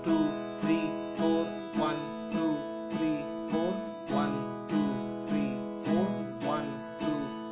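Acoustic guitar strummed in a steady quarter-note rhythm, one strum on each beat, close to two strums a second, the chord ringing between strokes.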